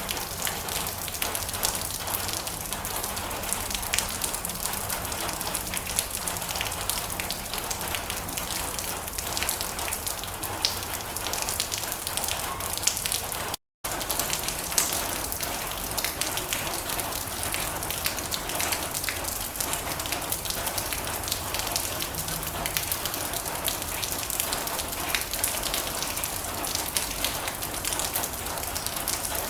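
Steady rain drumming on a metal roof: a dense hiss filled with sharp individual drop ticks. The sound cuts out for a split second about halfway through.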